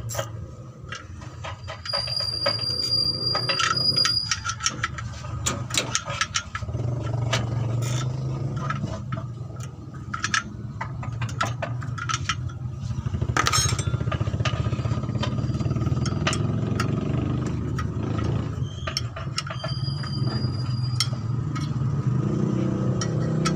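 Wrench clicking and clinking on the clutch cover bolts of a Mitsubishi L300 as the clutch cover (pressure plate) is unbolted, with irregular metal clicks throughout over a steady low hum. A thin, steady high squeal comes twice, early on and again near the end.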